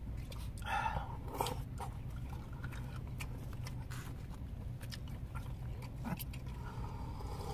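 Close-up eating sounds of sundae gukbap: chewing and slurping, with light clicks of chopsticks and spoon against plastic bowls, over a steady low hum.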